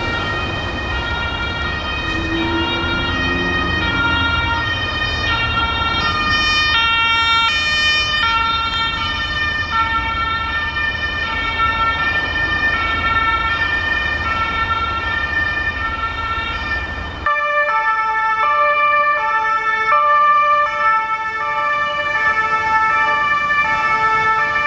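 German two-tone ambulance siren (Martinshorn) sounding on an emergency run, alternating steadily between a high and a low tone over a low traffic rumble. About 17 seconds in the sound changes abruptly to a different two-tone siren, louder and without the rumble.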